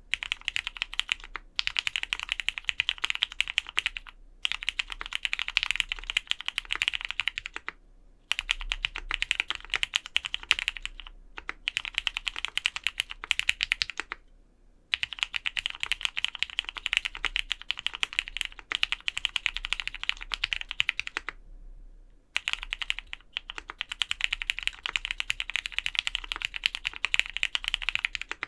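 Fast typing on a Vega custom mechanical keyboard with lubed Cherry Black Hyperglide linear switches, GMK keycaps and an aluminium plate, with one layer of case foam fitted. Rapid keystrokes come in runs of a few seconds, with brief pauses between them.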